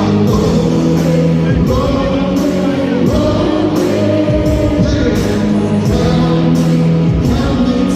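Live concert music played loud over a PA, with a steady beat, a sustained bass line and singing.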